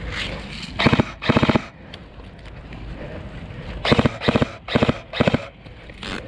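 Airsoft electric gun firing six short full-auto bursts, each a rapid rattle of shots: two near the start, then four in quick succession about four seconds in.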